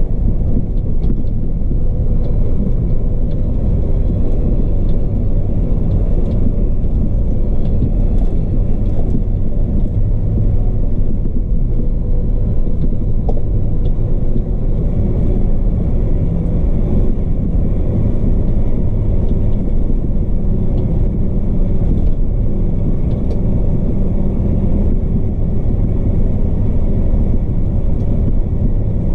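Log truck's diesel engine and drivetrain running as a steady low rumble, heard from inside the cab as the truck drives along a dirt road.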